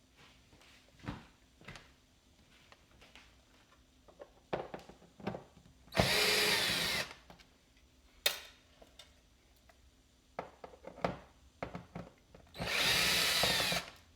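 Cordless power screwdriver backing out the screws that hold a TV's power board: two short runs of about a second each, some six seconds apart, with clicks and handling knocks of the screws and parts in between.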